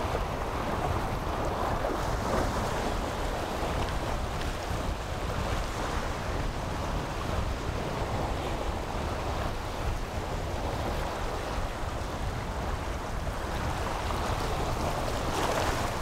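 Sea waves washing over a rocky shoreline, a steady wash that swells and eases, with wind rumbling on the microphone.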